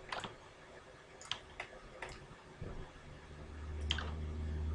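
A computer mouse clicking about five times, spaced irregularly, with a low hum coming up from about three seconds in.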